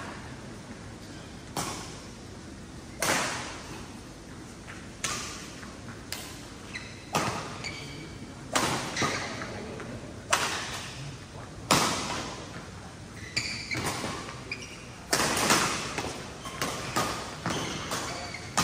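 Badminton rally: rackets striking the shuttlecock in quick exchanges, a sharp crack every second or two, each echoing in a large hall.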